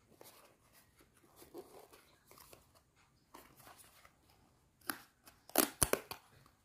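Small paperboard box being handled, with light rustling and tapping of the card, then a louder run of sharp scrapes and crackles about five seconds in as its seal is cut open with a thin tool.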